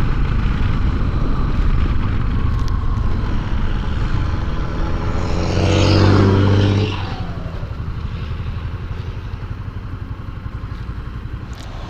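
Honda CB 300 motorcycle engine running at steady highway cruising speed, mixed with wind rush. Around the middle, a louder engine swells and then fades away with a falling pitch.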